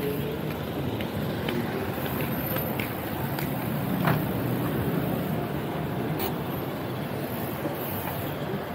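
Steady rush of wind and road noise from a road bike in motion, picked up by a handlebar-mounted camera, with a few sharp clicks and rattles from the bike.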